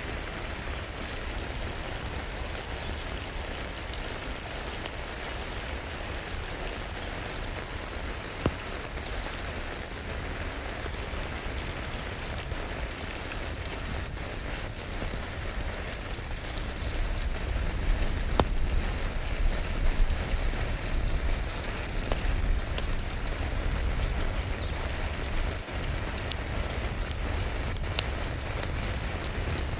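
Steady rain, with a few sharp single crackles from a wood fire. The rain grows a little louder past the middle.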